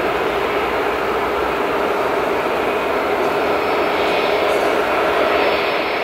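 Boeing 757-200 freighter's Rolls-Royce RB211-535 turbofan engines running at a steady, even level: continuous jet noise with a faint steady hum in it.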